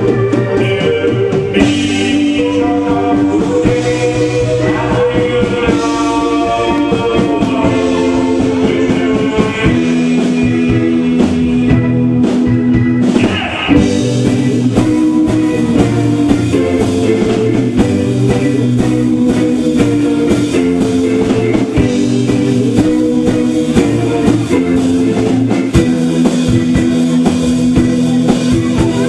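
Rock band playing live: guitar-led rock with held chords and notes over steady drum hits. A note bends upward about halfway through.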